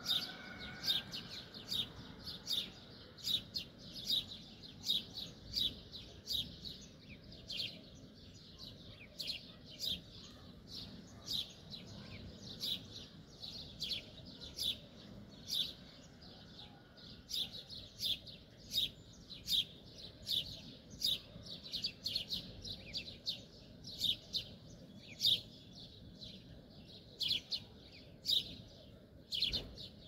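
Small birds chirping: a continuous run of short, high chirps at about two a second.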